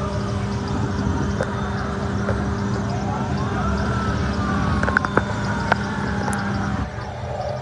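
Road and engine noise from moving vehicles, with a steady hum that cuts off about a second before the end. A faint siren wail rises briefly and then falls slowly through the middle, and a few sharp clicks come about five seconds in.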